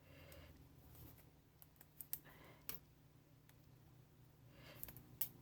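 Near silence with a few faint, scattered clicks of small parts being handled.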